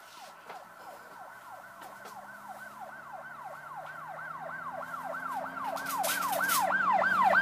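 Emergency-vehicle siren in a fast yelp pattern, about three wails a second, each dropping sharply in pitch. It grows steadily louder.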